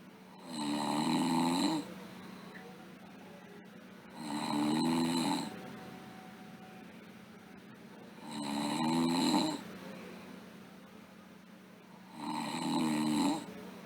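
A sleeping girl snoring: four snores about four seconds apart, each lasting a little over a second.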